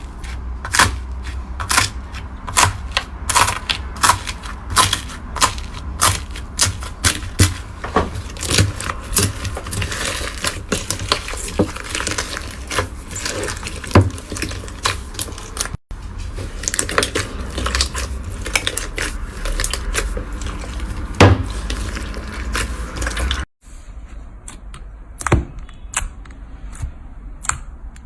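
Slime being worked by hand, popping and clicking in crisp snaps, about two a second for much of the time and sparser near the end. The sound breaks off abruptly twice and resumes with a different texture.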